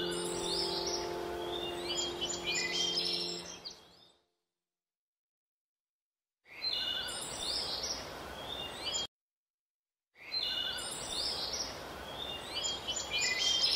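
Many small birds chirping in quick, short calls, a birdsong ambience track. A held music chord fades out over the first few seconds, and the sound cuts to dead silence twice, for about two seconds and then about a second.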